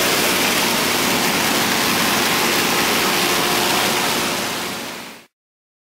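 Case IH 7088 combine with a 2600 chopping corn head harvesting corn: a steady rushing machinery noise with a faint hum under it, fading out about five seconds in.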